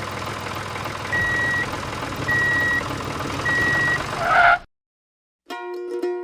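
A vehicle engine running steadily while a reversing alarm beeps three times, each beep about half a second long. The engine cuts off after about four and a half seconds, and plucked-string music starts near the end.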